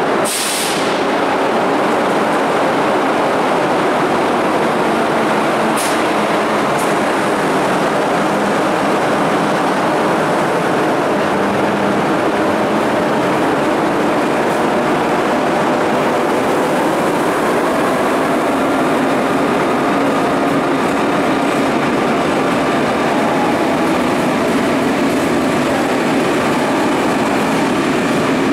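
A train running past on the rails: a loud, steady rush of wheel and rail noise that builds up in the first second and then holds, with a few faint clicks.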